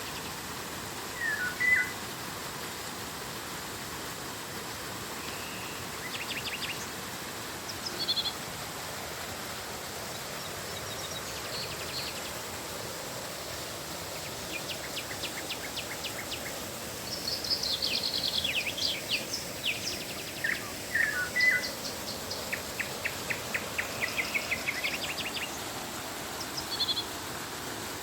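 Several birds calling over the steady rush of flowing river water: short whistled calls and fast high trills, busiest in the second half.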